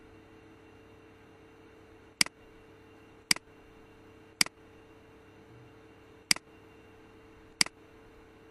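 Computer mouse button clicking five times, one to two seconds apart. Each is a sharp press followed closely by a softer release, over a faint steady hum.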